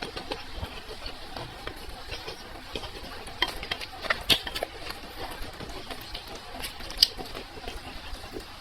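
Close-miked eating sounds: soft chewing with scattered short, sharp clicks.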